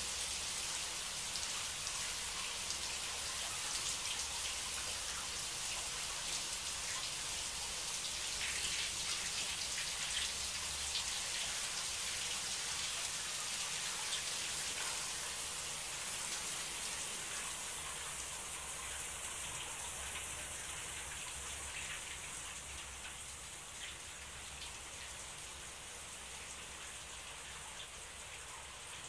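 Shower spray running steadily, an even hiss of water falling onto the tub, growing quieter over the second half.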